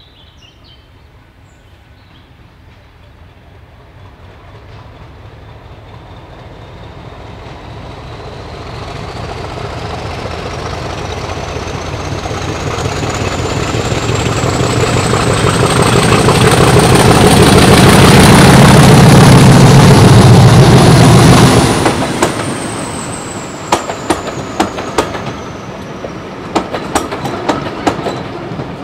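Diesel locomotive approaching and passing: its engine grows steadily louder with a high whine that climbs in pitch, peaks, then falls and drops away abruptly about two-thirds of the way through. Then the coaches' wheels clickety-clack over the rail joints.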